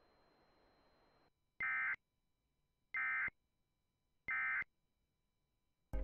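Emergency Alert System end-of-message data tones received over FM radio: three short, identical bursts of warbling two-tone digital squawk, each about a third of a second long and about 1.3 seconds apart. They mark the end of the alert. Faint radio hiss comes before the first burst.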